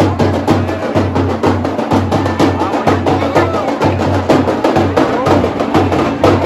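Drumming: a fast run of sharp strokes over a deep drum beating about twice a second, with crowd noise beneath.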